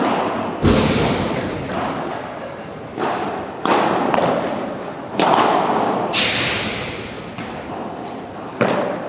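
Padel ball being struck with solid padel rackets and bouncing during a rally: about seven sharp hits one to two seconds apart, each ringing on in an echoing hall.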